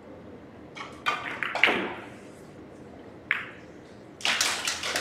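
Carom billiards shot: the cue strikes the cue ball about a second in, followed by sharp clicks of the balls hitting each other and the cushions, with another click a couple of seconds later. Near the end a quick run of claps begins, louder than the shot.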